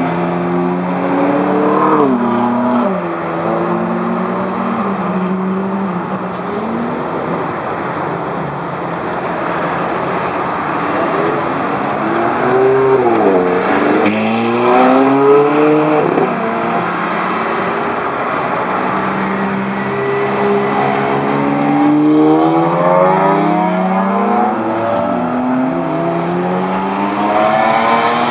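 Several Ferrari sports cars, among them a 458 Spider and an F430 Spider, accelerating hard away from an intersection one after another. Each engine climbs in pitch and drops abruptly at every upshift, with a run of quick shifts about halfway through and again near the end.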